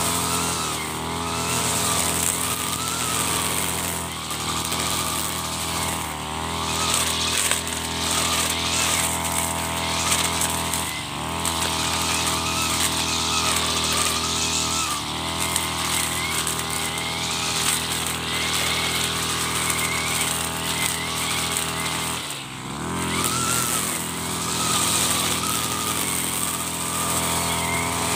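Mitsubishi TB43 backpack brush cutter's two-stroke engine running at cutting speed, easing off briefly several times and picking up again. An odd noise comes from the gear box at the cutting head, which the owner puts down to too little grease there.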